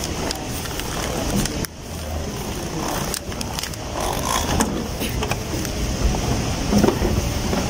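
Steady low rumble of a busy airport terminal and escalator, with scattered clicks and knocks and a brief drop in level about two seconds in.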